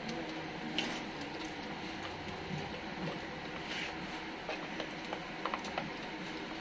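Steady workshop background noise with a few faint clicks and rustles of wires and plastic parts being handled, a small cluster of clicks near the end.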